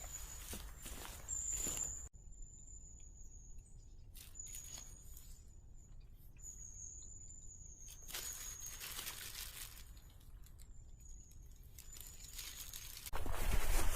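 Forest sound: a high, thin, drawn-out call repeating every second or so over faint rustling. Louder rustling starts near the end.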